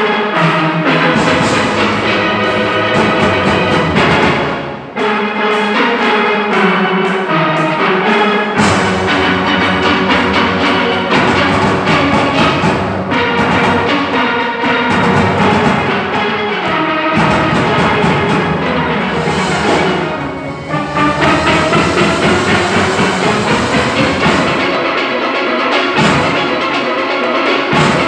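A large steel orchestra playing live: many steelpans sounding together in full ensemble, with percussion beneath. The music dips briefly twice, about five seconds in and again around twenty seconds in.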